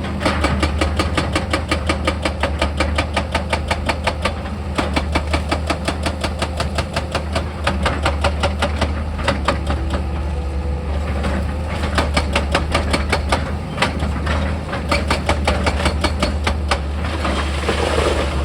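Diesel engine of heavy machinery running steadily under rapid, regular percussive hammering, several blows a second, typical of a hydraulic rock drill or breaker working rock. The hammering thins briefly a couple of times.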